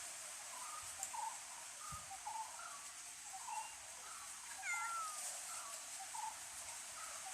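Cat mewing softly and repeatedly, short calls about twice a second, with one longer call that falls in pitch a little before the middle.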